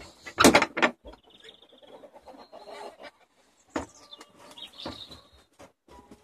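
Wooden coop door being handled, with a burst of scraping and knocking in the first second and a few fainter knocks later. Between them come short high bird calls and chickens clucking.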